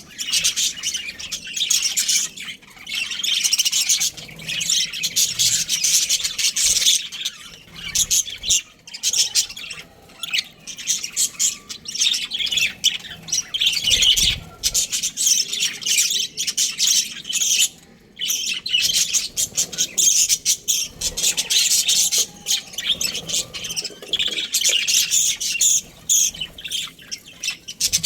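Budgerigars chirping and chattering, high-pitched, in rapid runs broken by short pauses every few seconds.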